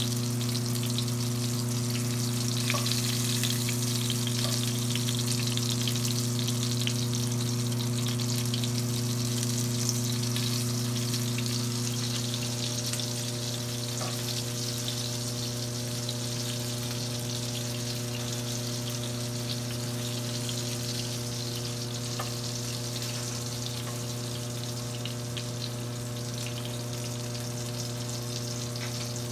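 Breaded mozzarella cubes frying in shallow hot oil in a nonstick pan: a continuous crackling sizzle that eases a little in the second half, with a few faint clicks, over a steady low hum.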